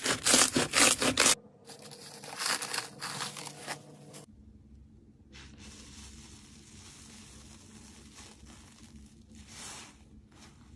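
Slime being stretched and worked by hand, with rapid tearing, rubbing sounds. It is loud for about the first second and a half, quieter until about four seconds in, then fades to faint handling noise.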